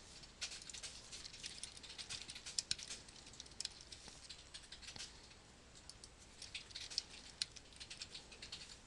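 Faint typing on a computer keyboard: two runs of quick, irregular key clicks with a short pause between them.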